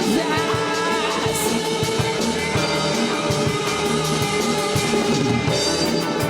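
Rock band playing live: electric guitar and drum kit driving a steady beat through an instrumental passage of the song.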